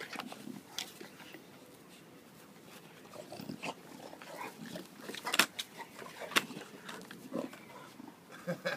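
Two dogs play-fighting at close range: scuffling and dog sounds, with a few sharp clicks, the loudest about five and a half and six and a half seconds in.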